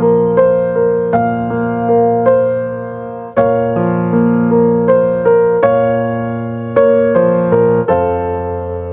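Background music: a slow solo piano melody, notes struck two or three a second and left to ring, settling onto a held chord near the end.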